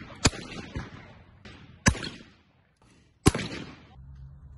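Shotgun shots at clay targets: three loud shots about a second and a half apart, each trailing off in an echo, with a fainter crack at the very start.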